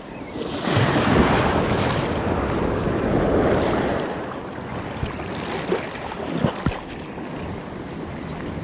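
Ocean surf washing in around a wading angler, with wind buffeting the microphone; the wash swells about a second in and eases after about four seconds. A few brief clicks come near the end.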